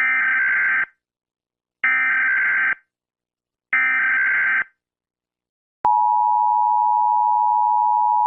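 Emergency Alert System tones: three short bursts of the SAME digital data header, about two seconds apart, then the steady two-tone EAS attention signal, which begins about six seconds in. Together they are the header and attention tone that open an emergency alert broadcast.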